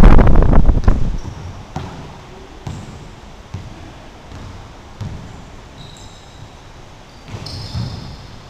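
Basketball game sounds on a hardwood gym floor: a few ball bounces and short high sneaker squeaks, with a loud blast of wind-like noise on the microphone during the first second.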